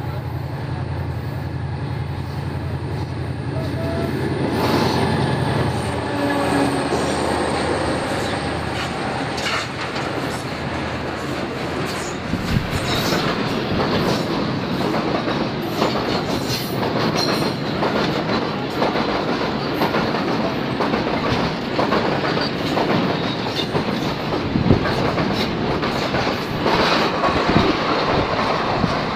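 Diesel locomotive approaching with a steady low engine drone, then a long container freight train rolling past close by. The wagons' wheels click over the rail joints in a rapid, continuous clatter from about twelve seconds in.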